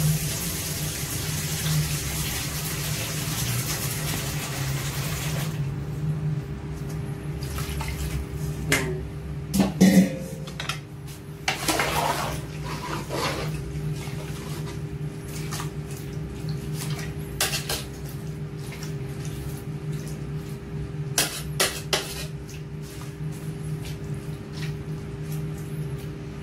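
Water pouring into a large aluminium stockpot for about the first five seconds. Then a metal ladle stirring the pork offal, knocking and clinking against the pot, over a steady low hum.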